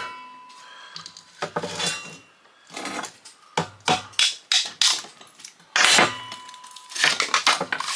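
Metal parts of a dismantled exhaust fan clanking and knocking as they are handled and set down. There are scattered sharp knocks, two of which ring on briefly, and a quick run of clanks near the end.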